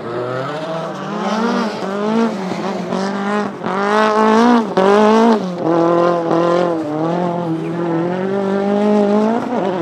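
Fiat 500 Abarth rally car engine revving hard as the car slides sideways on snow, the pitch wavering up and down as the throttle is worked, with short dips in revs about three and a half and five seconds in.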